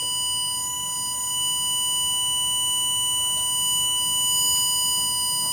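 A steady electronic beep: one unbroken high-pitched note with a buzzy edge, holding at an even level.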